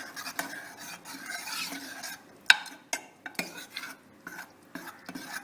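A spoon stirring and mashing thick cooked dal in the pressure cooker: continuous scraping for about two seconds, then several sharp knocks of the spoon against the pot, roughly half a second apart.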